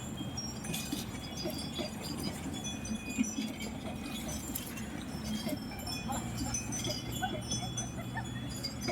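Small bells on bullocks tinkling and jingling irregularly, many short ringing notes, over a steady low rumble.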